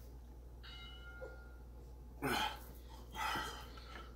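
A man breathing hard through his mouth against the burn of an extremely hot chilli chocolate bar: a faint whistling wheeze, then a sharp hissing breath about two seconds in and a smaller one about a second later.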